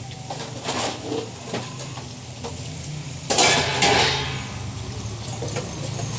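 Pork chunks deep-frying in a steel wok of oil, with a steady bubbling crackle. Metal kitchenware clinks and clatters over it several times, loudest about three and a half seconds in.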